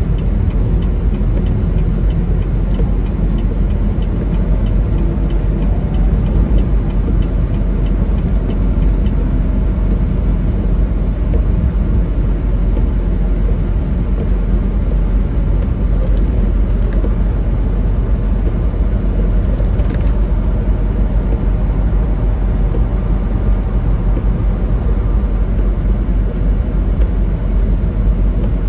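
Loaded semi-truck heard from inside the cab while driving: steady diesel engine drone and road rumble.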